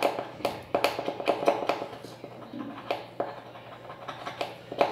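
Thin metal spatula scraping and ticking against the metal dome contacts of a button phone's keypad sheet, rubbing off the buildup that keeps the keys from working. Quick strokes come close together for the first couple of seconds, then fewer and more spaced out.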